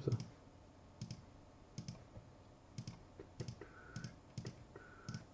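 Light, irregular clicks, about one or two a second, from computer keys being pressed, after a soft knock at the very start. A faint brief tone sounds twice in the second half.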